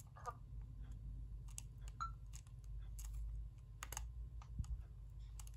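Faint, irregular clicks of a Coby Snapp CAM3001 mini camcorder's buttons being pressed as the camera is handled.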